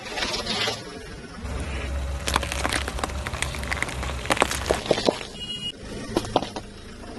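Car tyre rolling slowly over vegetables on asphalt and crushing them: a run of sharp cracks and snaps over a low rumble, with a few more cracks near the end.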